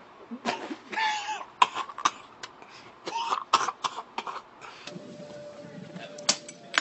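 A person coughing and clearing their throat in a series of short bursts.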